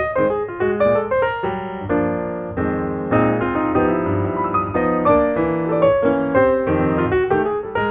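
Background piano music: a run of quick notes over changing chords at a steady level.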